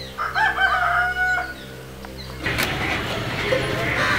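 A chicken gives one loud, drawn-out call of over a second, over steady background music. About two and a half seconds in, the music cuts off and a noisier background takes over.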